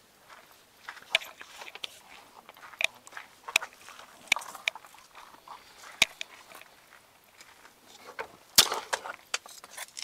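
Scattered light knocks, clicks and crunches of things being handled, irregularly spaced, with a louder cluster of knocks near the end.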